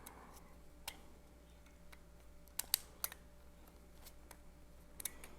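Small sharp clicks of parts being handled as a gas blowback airsoft magazine is taken apart by hand, the spring-loaded follower being eased out. A handful of isolated ticks, two in quick succession near the middle.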